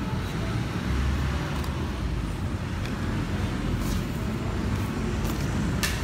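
Steady low background rumble, with a few light clicks of cardboard picture cards being handled, about four seconds in and again near the end.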